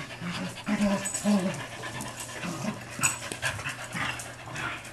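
Two dogs, a German Shepherd/Chow mix and an American Bulldog mix, play-fighting: panting, a few short low growls in the first second and a half, and scuffling on the floor.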